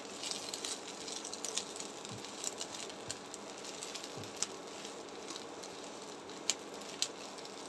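Dried fish, garlic and chillies frying in oil in a nonstick wok, a steady sizzle with light crackling, as a silicone spatula stirs and presses them; a few sharp ticks come in the second half.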